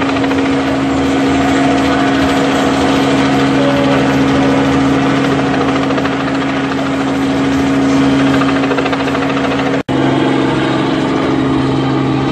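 Helicopter hovering overhead: a loud, steady throb of the rotor over a constant engine hum. It cuts out for a split second about ten seconds in, then carries on.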